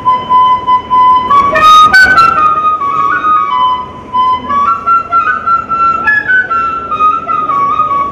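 Bamboo flute played through the nose, a slow wavering melody that holds a note, steps upward and drifts back down. A brief loud noisy burst cuts across it about two seconds in.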